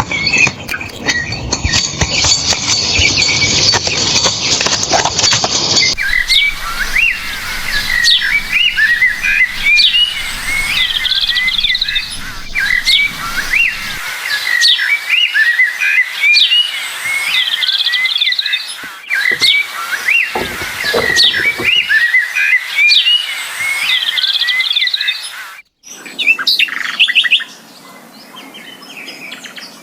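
Small birds chirping: many short, quick calls repeated throughout. The background changes abruptly a few times.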